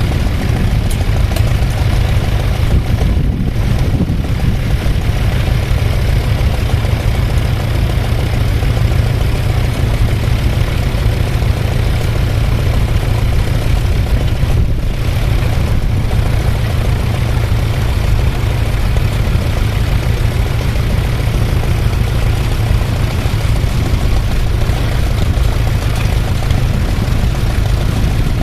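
Tractor engine running steadily with a low, even rumble.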